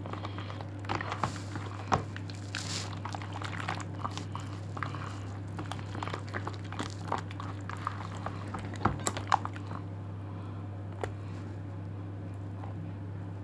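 A hand squishing and stirring flour into a wet yeast, oil, milk and egg batter in a bowl: irregular squelches and sharp little clicks, busiest for the first nine seconds or so and thinning out near the end, over a steady low hum.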